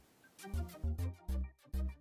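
Background music with a steady, heavy bass beat, about two beats a second.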